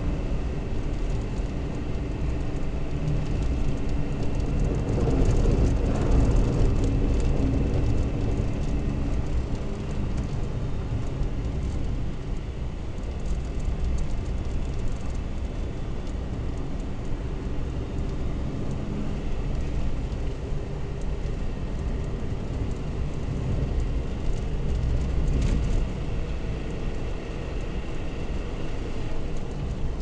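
Car driving on a snow-covered road, heard inside the cabin: a steady low rumble of tyres and engine with a faint steady whine above it, swelling a little about five seconds in.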